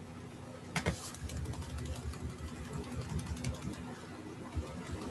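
Faint clicking from a computer being operated: one sharp click about a second in, then a run of quieter quick clicks over a low, uneven rumble and a steady hum.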